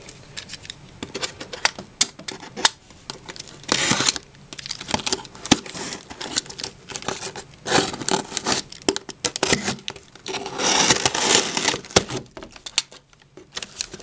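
Packing tape being cut and torn off a cardboard shipping box, with cardboard flaps rustling and scraping, in several noisy bursts among small clicks.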